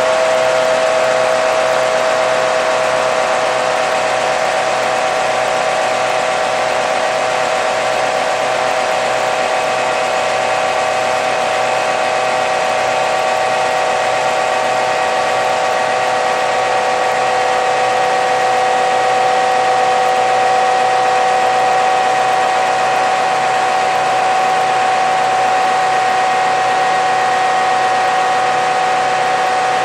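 Engine room of a NOHAB-built MÁV M61 diesel locomotive: its EMD 567-series V16 two-stroke diesel running steadily under way, with a steady high whine over the dense engine noise.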